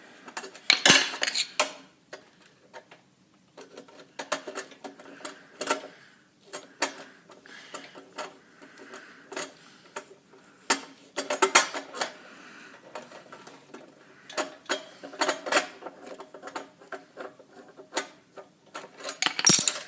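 Irregular metallic clicks and clinks of a hand wrench working against a stubborn lock nut and bolt on steel.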